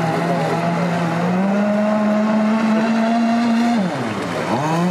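RC racing powerboat's motor running at speed, a steady whine that steps up in pitch about a second and a half in, holds, then dips sharply near the end and climbs straight back up.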